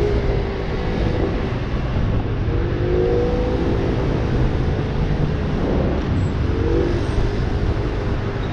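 Aprilia SXR 50 scooter running while being ridden, over a heavy low rumble; its engine note rises twice as it speeds up.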